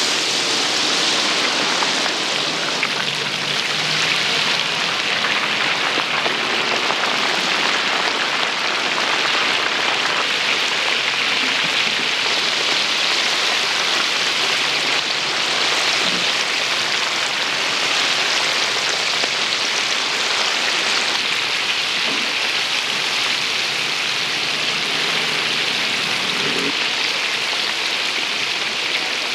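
Food deep-frying in hot oil: a steady, loud sizzle.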